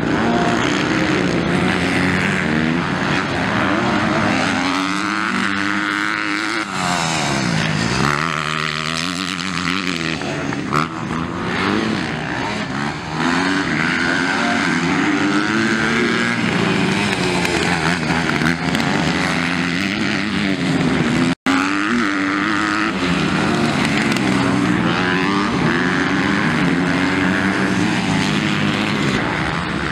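MX2 motocross bikes racing on a dirt track, their engines revving up and falling back again and again as they accelerate, shift and pass. The sound cuts out for an instant about two-thirds of the way through.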